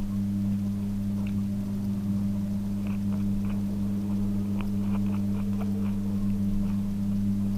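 A steady low hum from a running machine or appliance, even in pitch and level throughout, with faint scattered clicks of cutlery on a plate.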